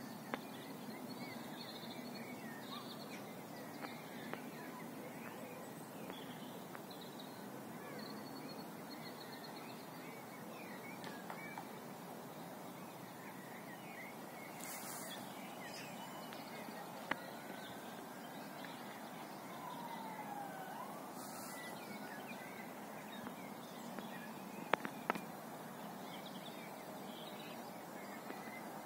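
Outdoor ambience: a steady background hum with faint, distant birds chirping throughout. A faint whistle falls and then rises about two-thirds through, and a few sharp clicks stand out near the middle and toward the end.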